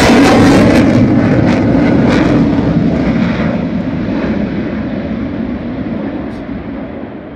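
Fighter jet's engine noise as it passes overhead and climbs away: loud at first, then fading steadily, the hiss dying away before the low rumble.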